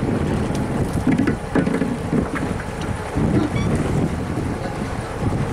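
Wind buffeting the microphone on an open fishing boat at sea, a low rumbling noise, with a few faint knocks as the crew haul the trawl net and its rope in by hand.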